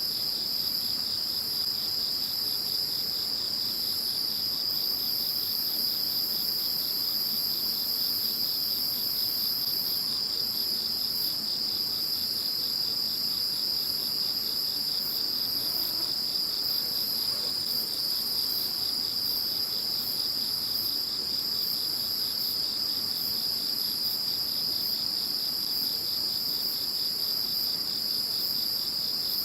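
A chorus of singing insects, several kinds at once: a steady high trill, a fainter higher trill above it, and a fast, even pulsing chirp just below them, with another pulsed chirp very high up that grows stronger about ten seconds in.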